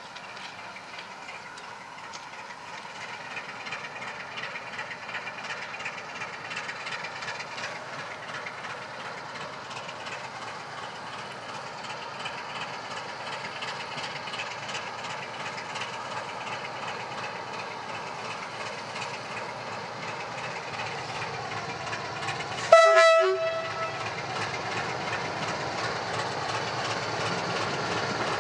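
Electroputere LDE2100 (060-DA) diesel-electric locomotive with its Sulzer diesel engine running, approaching at the head of a freight train and growing steadily louder, with wheels clicking over the rail joints. About 23 seconds in it gives one short horn blast.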